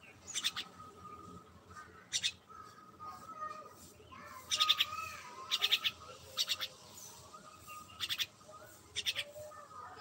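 A myna calling: short, sharp chirps in quick clusters of two to four, repeated every second or so.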